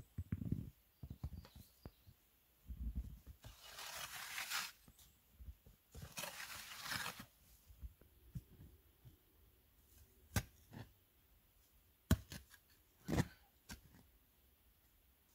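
Footsteps crunching in snow, then two scraping, tearing rustles, each about a second long, as dry leaves and soil are cleared by hand. Near the end come a few sharp knocks.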